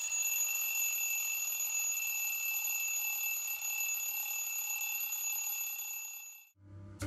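Stovetop kettle whistling: a steady, breathy high whistle that cuts off about six and a half seconds in, after which music starts.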